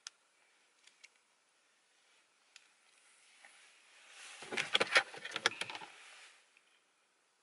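Rustling and crackling right at the microphone, building about three and a half seconds in, loudest around five seconds with many sharp crackles, then fading out: handling noise as the phone is moved against the fuzzy jacket and what she holds.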